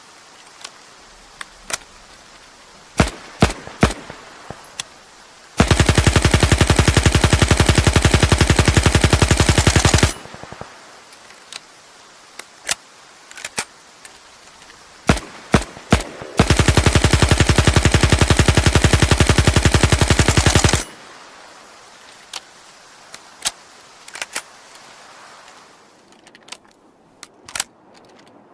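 Zubr-19 submachine gun sound effect: scattered single shots, then two long full-auto bursts of about four and a half seconds each at a very high rate of fire, with more single shots between them and after.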